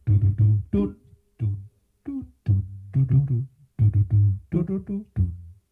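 A man's voice improvising wordless vocal sounds into a handheld microphone: a run of short pitched bursts, each broken off by a brief pause.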